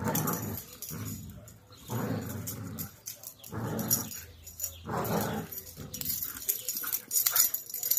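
Huskies growling and grumbling in play over a tug toy: about five short bursts, each under a second, roughly a second apart. Near the end come quick scuffling clicks and rustles.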